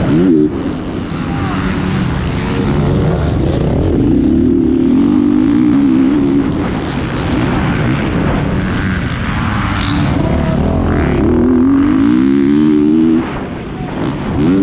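Motocross bike engine run hard, its revs repeatedly climbing and falling with throttle and gear changes. The throttle is chopped briefly about 13 seconds in, then it picks up again.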